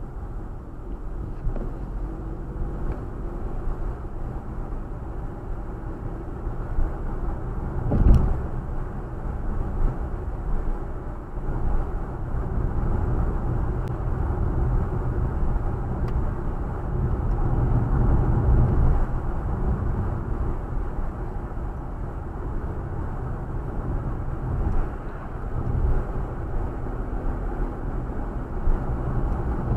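Steady low rumble of road and engine noise heard from inside a moving car's cabin, with one sharp knock about eight seconds in.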